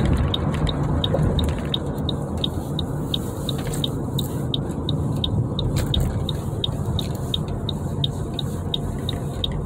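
Road and engine noise inside a moving car's cabin, with a turn-signal indicator ticking steadily about twice a second from a few seconds in.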